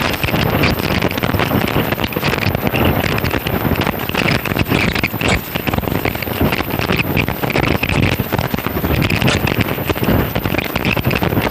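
CNC oxy-fuel gas cutting machine at work: a steady loud hiss from the torch, with frequent crackles.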